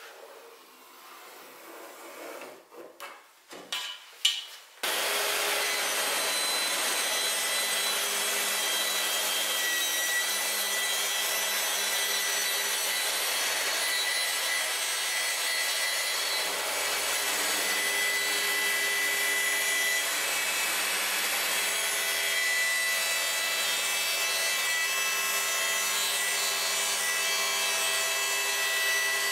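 A few light wooden knocks and clatters, then about five seconds in a power tool starts abruptly and runs steadily through the rest, cutting wood with a constant whine over its noise.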